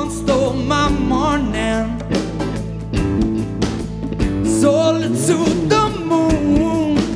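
Live band playing a song: drums, electric and acoustic guitars and bass, with a lead vocal singing over them.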